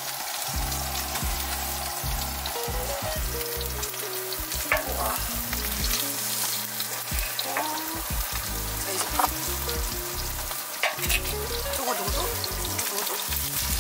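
Food frying and sizzling steadily in a hot pan, with a few light clicks of a utensil.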